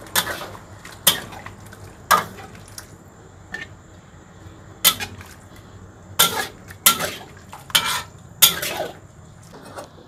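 Kitchen utensils knocking and clinking against pots and dishes during cooking: about ten sharp, irregular knocks, each with a brief ring.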